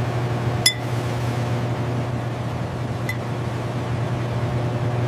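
Steady low machine hum with a hiss over it, broken by a light clink of laboratory glassware a little under a second in and a fainter one about three seconds in.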